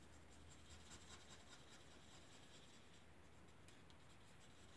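Near silence, with the faint scratch of an alcohol marker's tip colouring over cardstock against a low steady hum.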